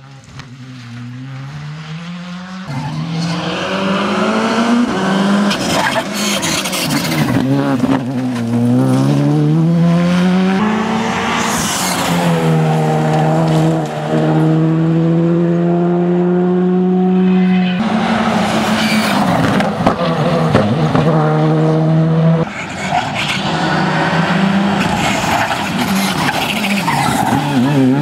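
Rally car engine under hard acceleration. The revs climb and break in steps through quick gear changes, then hold high and steady for several seconds in the middle before dropping and climbing again near the end.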